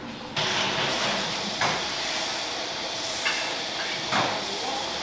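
A steady hiss that starts suddenly about half a second in, with a few soft knocks of utensils against a steel bowl on top of it.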